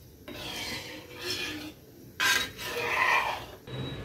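Metal perforated ladle scraping round the bottom of an aluminium kadai as vermicelli is stirred in simmering milk, in several strokes, loudest a little after two seconds in.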